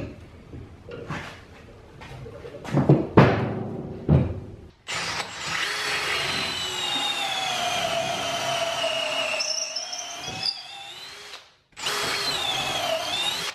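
Cordless drill boring through an old wooden wheelbarrow handle into a new wooden handle clamped beneath it, its motor whine sinking slowly in pitch as the bit bites. It stops briefly near the end, then runs again. Before the drilling, a few knocks as the two handles are clamped together.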